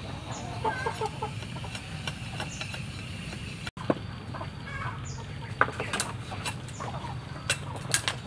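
Chickens clucking, with short calls early on and over a steady low hum. In the second half, sharp clinks of metal cookware: a metal tray and a large aluminium pot being handled.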